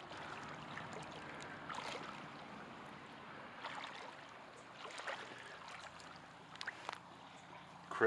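Shallow creek water running over stones, with a few scattered crunches of gravel and pebbles underfoot.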